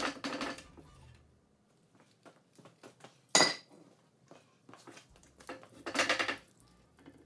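Metal-on-metal clinks and scraping from a VW Beetle front torsion beam's steel trailing arm being worked off its splined torsion leaf springs. There is a rattle at the start, one sharp loud clank about three and a half seconds in, and a ringing scrape about six seconds in as the arm is pulled.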